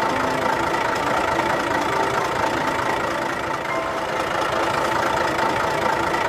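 Cartoon snowblower's engine running steadily as the machine starts working and cuts through snow.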